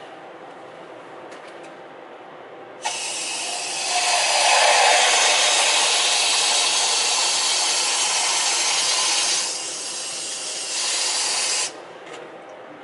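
Water running from an open valve on a bare wall pipe into a plastic container: turned on suddenly about three seconds in, a steady loud hiss that eases a little near the end and then stops abruptly as the valve is shut.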